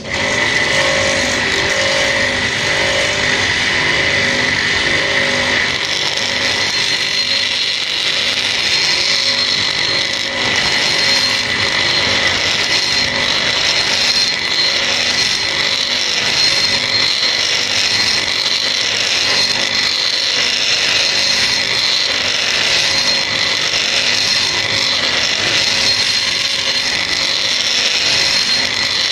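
Handheld high-speed rotary grinder with a carbide burr cutting into a port of an aluminium motorcycle cylinder head (porting, enlarging the port). It is a steady high whine with a grinding rasp that starts abruptly at full speed.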